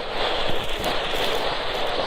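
Ear-cleaning ASMR sounds: a tool rubbing and scratching at close range against a microphone ear, giving a dense, crackly rustle with many small clicks.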